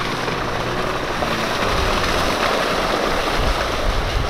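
Small outboard motor pushing an inflatable dinghy at planing speed, heard under a steady rush of wind and water, growing slightly louder as the dinghy nears.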